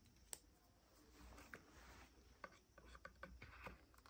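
Near silence with faint rubbing and a few small clicks of a cardboard cosmetics box being handled.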